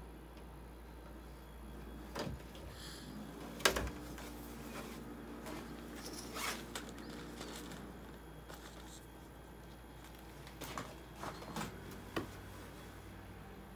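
Scattered knocks and clicks of hands working on the opened-up casing and insides of a Panasonic F-Y101BW dehumidifier during repair, over a steady low hum. The sharpest knock comes about four seconds in, with a quick run of clicks near the end.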